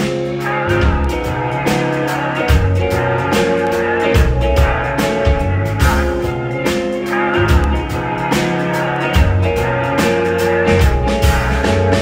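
Live band of electric guitar, bass guitar and drum kit playing together, with a moving bass line under sustained guitar notes and steady drum and cymbal hits.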